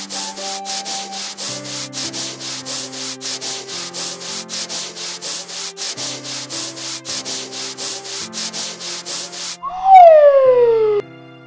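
Cartoon car-wash brush scrubbing sound effect: a rhythmic rubbing of about three strokes a second over a soft music bed. Near the end the scrubbing stops and a loud, falling whistle tone slides down in pitch for about a second.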